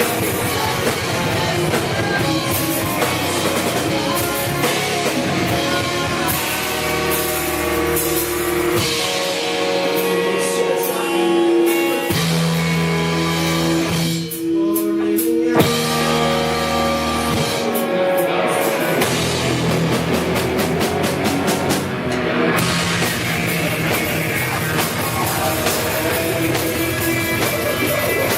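Rock band playing heavy rock with a drum kit. About nine seconds in the drums thin out for a stretch of long held notes, and the full band with drums comes back in at around nineteen seconds.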